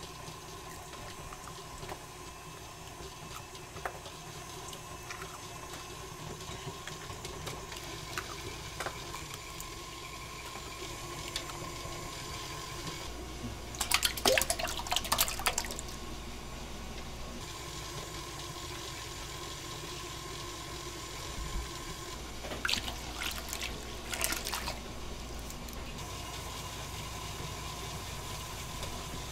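Kitchen work noise: a steady hum with a thin steady tone over it, broken by two short bursts of clattering, about halfway through and again some eight seconds later.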